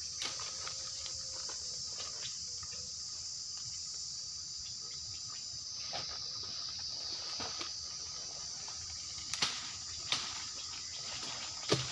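Forest insects droning steadily at a high pitch, with a few sharp crackles of brush or twigs near the end.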